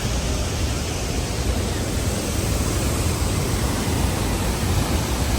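Waterfall: falling water rushing steadily, a dense even hiss with a strong low rumble.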